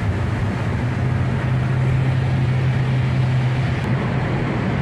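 Car engine and tyre noise heard from inside the cabin while driving through a road tunnel: a steady drone, with a low hum that stands out for about three seconds in the middle.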